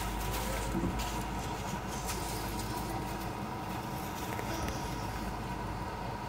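Steady mechanical hum, with a faint high tone held throughout.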